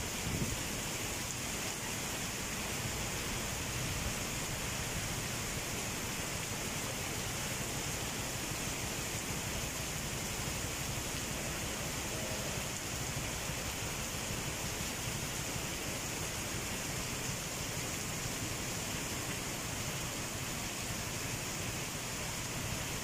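Heavy tropical rain pouring steadily onto paved ground, an even, unbroken hiss.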